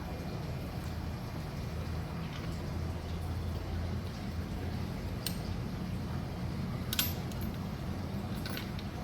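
A few light metallic clinks of tools and engine parts being handled, the loudest about seven seconds in with a short high ring, over a steady low hum.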